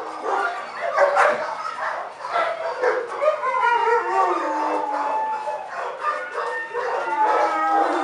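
Dogs barking and yipping, then a long drawn-out howl with a slightly falling pitch from about three and a half seconds in, more short yips, and another long howl near the end.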